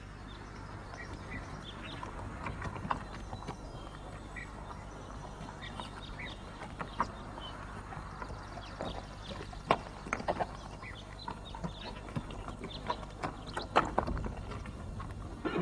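Horses standing still, with scattered hoof clops and knocks, a few louder ones in the second half, over a steady low hum.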